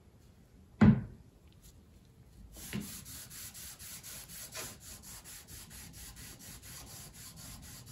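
A rag rubbing shellac stain into pine beadboard in quick, even back-and-forth strokes, about four a second, beginning a couple of seconds in. Before the rubbing there is one sharp knock, the loudest sound here.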